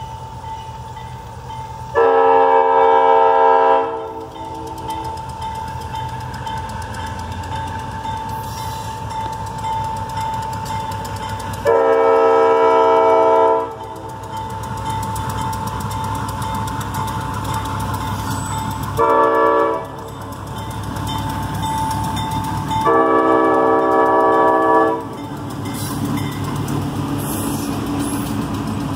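GE B36-7 diesel-electric locomotive sounding its horn, a chord of several notes, in the grade-crossing pattern: long, long, short, long. The engine rumble grows as it nears. After the last blast, freight cars roll past with a steady rumble.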